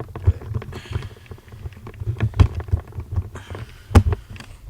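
Handling noise on a handheld camera's microphone: irregular low thumps, bumps and clicks, with the loudest thuds about a third of a second, two and a half seconds and four seconds in.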